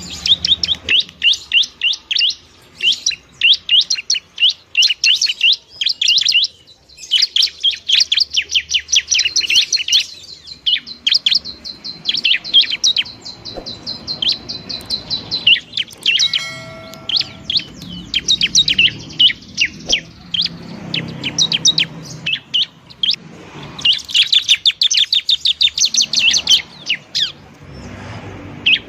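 Bar-winged prinia (ciblek) singing loudly and busily, in repeated runs of rapid, sharp, high notes, with a long fast trill partway through.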